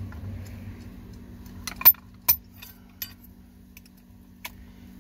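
Metal parts of a car starter motor clicking and clinking as they are handled and fitted together: the drive-end housing and the cover over its planetary gears. There are a few sharp clinks, the loudest about two seconds in.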